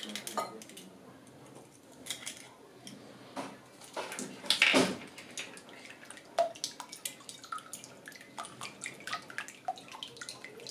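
An egg cracked against a cut-glass bowl, then eggs and milk beaten with a whisk, which clicks quickly against the glass while the liquid splashes. About halfway there is a louder, half-second burst of noise.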